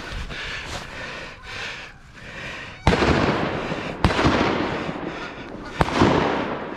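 Three shotgun shots, the second about a second after the first and the third nearly two seconds later, each booming and echoing away, fired at geese coming in to land.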